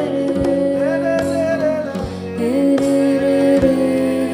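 Live music: melodic singing on held, gliding notes over a steady, evenly spaced drum beat.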